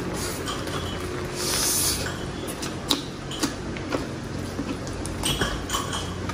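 Close-miked eating: crispy fried chicken being torn apart by hand and chewed, with a few small sharp clicks and crackles. Under it runs the steady hiss of heavy rain.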